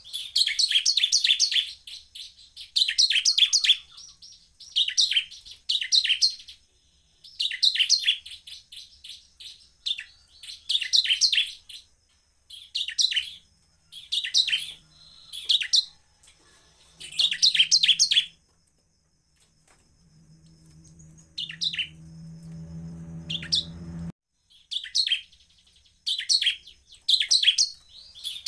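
Bar-winged prinia (ciblek) singing in repeated fast, high chattering phrases about a second long, with short gaps between them. In a break after the middle, a low hum grows louder for about four seconds and cuts off suddenly, and then the singing resumes.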